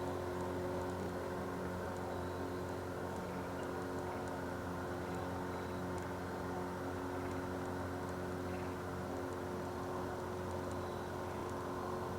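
Steady, unchanging drone of a boat engine, holding one even pitch throughout.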